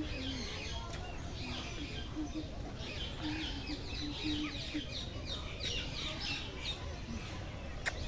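A busy chorus of small birds chirping and twittering, many short, quick, falling chirps overlapping, over a low rumble. Two sharp clicks near the end.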